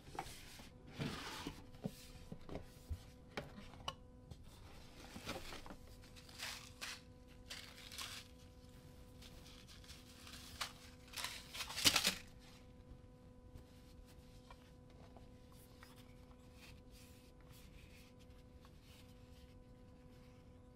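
Unpacking noise: rustling and scraping of a cardboard box and a cloth drawstring pouch as over-ear headphones are taken out. The bursts come in irregular bunches and stop about twelve seconds in, the loudest just before they stop. A faint steady hum remains.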